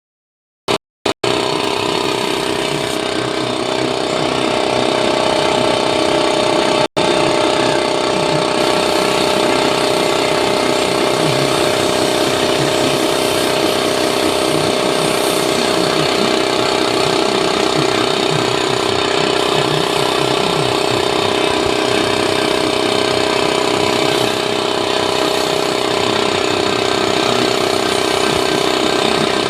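A motor-driven machine running steadily, a fast low rattle under a steady hum. It breaks off for a moment a couple of times near the start and once about seven seconds in.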